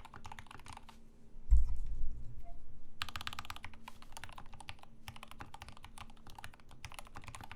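Typing on a Rama M65-B mechanical keyboard with a brass plate and lubed Gateron Ink switches: rapid, muted, smooth thocky keystrokes. There is a short pause and a louder low thump about a second and a half in, then a dense run of typing.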